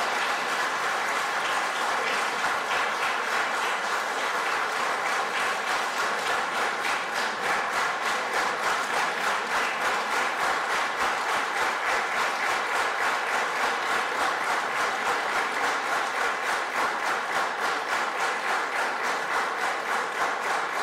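A large audience applauding at length. After a few seconds the clapping falls into unison: a steady beat of about two to three claps a second.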